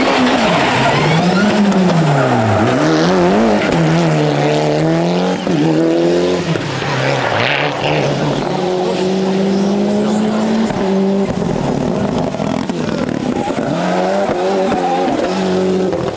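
Group A rally cars, a Mitsubishi Lancer Evolution and a Toyota Celica GT-Four, their turbocharged two-litre four-cylinder engines revving hard through a tarmac bend. The pitch drops and climbs again several times with braking, gear changes and acceleration, with one car following another, and holds steady for a few seconds in the middle.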